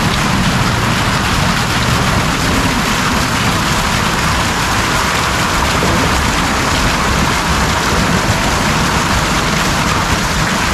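Water pouring and splashing steadily down a decorative waterfall, a loud, even rush.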